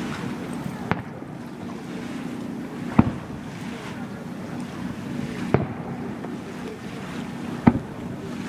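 Fireworks bursting: four sharp bangs about two to two and a half seconds apart, over a steady low hum.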